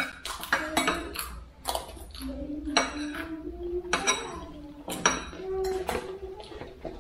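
Eating utensils clinking and scraping against bowls and plates during a meal, with frequent irregular sharp clinks.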